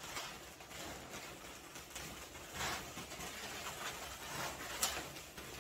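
Latex twisting balloons rubbing and rustling against each other as a balloon flower is pushed into place among the balloons of a figure, with a few soft knocks and a sharp tick a little before the end.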